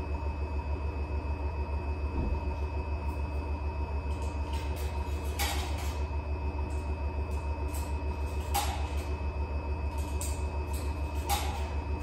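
Electrolux W75MP commercial front-load washer spinning its drum at high speed in the final extraction: a steady whine over a fast, even low throb, with three brief clicks spread through.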